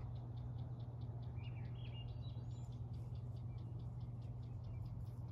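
A bird calling, one short phrase of stepped notes about a second and a half in, over a quick, even high chirping about five times a second and a steady low hum.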